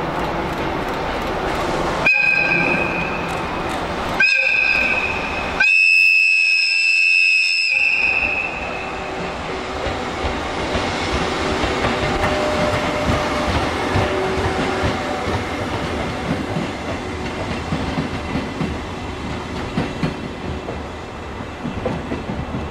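Electric locomotive EF81 sounding its horn three times, two short blasts and then a long one of about two seconds. It then passes hauling a train of hopper wagons, with a steady rumble and wheels clacking over rail joints.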